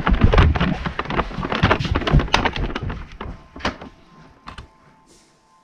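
Handling noise from a camera held against clothing: rubbing and rumbling with a dense run of clicks and knocks, thinning out and fading after about three seconds.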